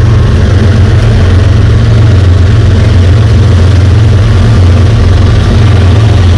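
Loud, steady low rumble of wind buffeting the microphone while riding, unchanging throughout.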